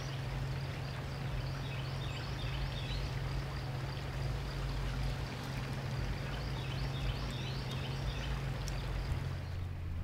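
Steady rushing of a running stream, with faint short chirps repeating high above it.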